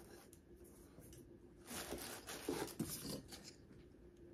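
Faint handling sounds from a pumpkin-shaped candle pot and its lid: a soft rustle and a few light knocks between about two and three seconds in.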